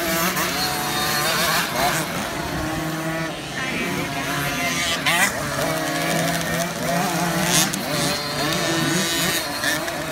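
Several 50cc motocross bikes racing together, their engines' pitch rising and falling as the riders open and close the throttle through the corners.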